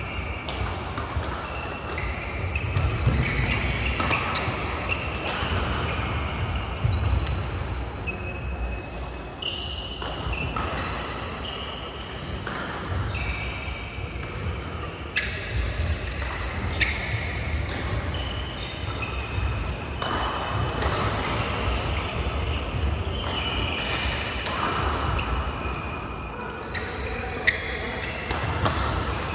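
Badminton rallies in a large hall: rackets striking shuttlecocks and shoes squeaking and thudding on the court mats, from several courts at once, with echo.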